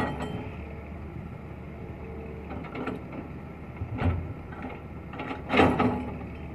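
Heavy diesel machinery, a tipping dump truck and a Komatsu excavator, running with a steady low engine hum. Several short knocks and clatters break through it, the loudest about five and a half seconds in.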